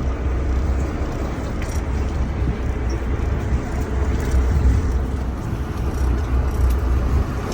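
Boat engine running with a steady low rumble and a wash of noise over it.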